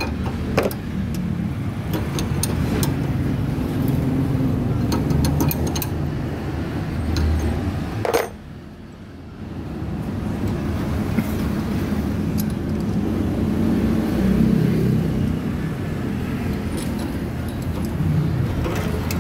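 Scattered metal clicks and clinks from a screw-type bushing press and wrench being worked on the lower suspension arm as the new bushing is pressed in, over a steady low rumble.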